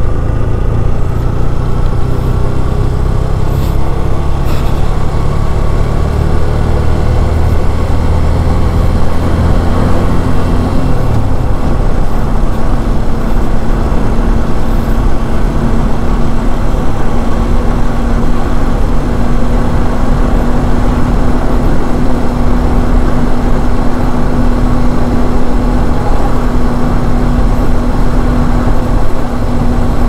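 Yamaha motorcycle engine running steadily at road speed, with wind rushing over the microphone. About ten seconds in the engine note shifts, then holds steady.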